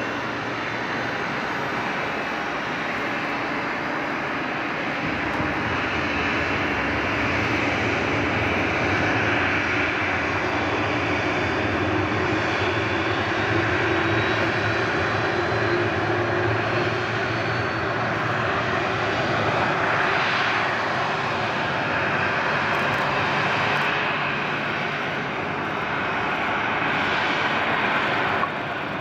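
Boeing 737-800 airliner's CFM56-7B turbofan engines on landing approach, a steady jet whine that grows louder as the plane nears, followed by the landing and rollout on the runway.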